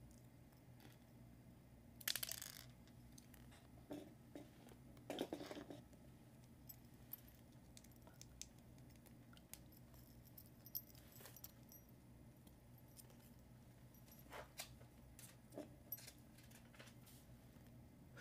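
Near silence with a faint steady hum, broken by small clicks and rattles of plastic Lego pieces being handled and pressed together; the loudest rattles come about two and five seconds in.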